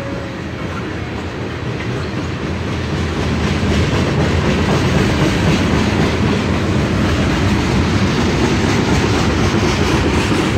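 Freight train of tank cars rolling past close by: steel wheels running on the rails in a steady rumble that grows louder a few seconds in.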